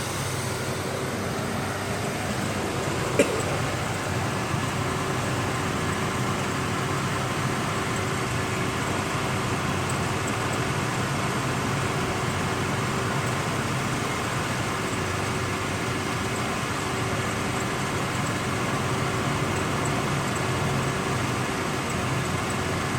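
Truck engine idling with its cooling fan running strong: a steady whir with a constant hum. A single sharp click about three seconds in.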